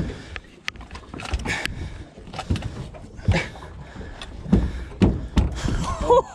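Irregular knocks and thumps of fishing gear and a gaff being handled against a small aluminium boat's hull and deck. Near the end a wavering pitched sound starts up.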